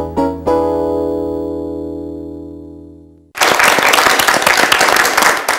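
A keyboard music sting, a few quick chords with the last one held and fading away over about three seconds. It is cut off suddenly by a studio audience applauding.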